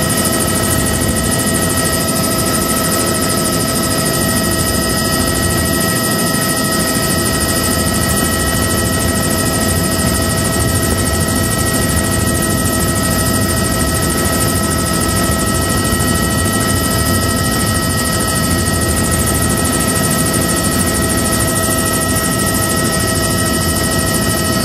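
Helicopter in steady cruising flight, heard from inside the cabin: a loud, unbroken mix of engine and rotor noise, with several steady high whining tones on top.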